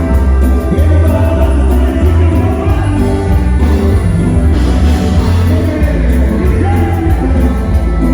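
Loud band music with a strong, steady bass line and singing.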